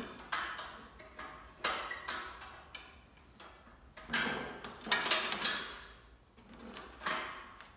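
Metal clinks and clanks as a steel handle attachment and carabiner are handled and clipped onto a belt squat machine, knocking on its steel platform. There are a string of sharp metallic knocks with ringing, the loudest about five seconds in.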